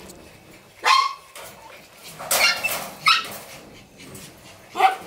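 Miniature schnauzer puppies at play, giving four short, high-pitched yips and barks spread through a few seconds.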